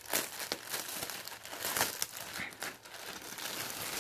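Thin clear plastic garment polybag crinkling and rustling continuously as it is opened and the cotton sweatshirt is pulled out of it.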